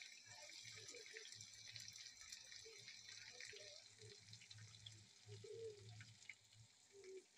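Very faint sizzle of chopped onions frying in hot oil with ginger and garlic in a kadhai, dying down about halfway through.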